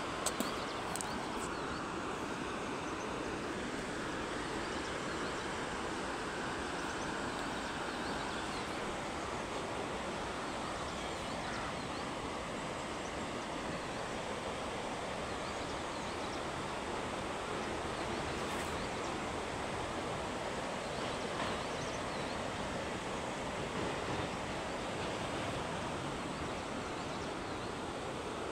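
Steady, even rushing of a mountain river in the valley, with a few faint knocks about half a second in.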